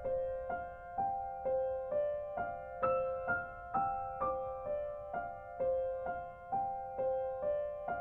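Background music: a solo piano playing a gentle repeating pattern of notes, about two notes a second.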